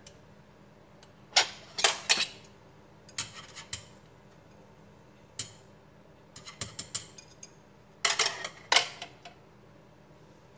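A kitchen utensil clinking and scraping against a ceramic bowl and a nonstick frying pan, in several short bursts of quick clicks.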